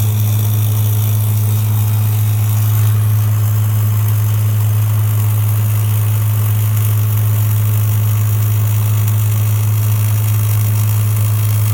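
Steady low hum of running equipment at a weld and on-site machining job. The hum holds one constant pitch with a faint hiss above it and does not change.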